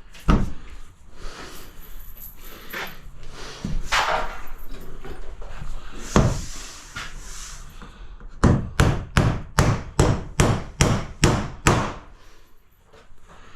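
Hammer nailing cement sheet to wall studs: scattered knocks and thuds, then a quick run of about a dozen hammer blows, roughly three a second, in the second half.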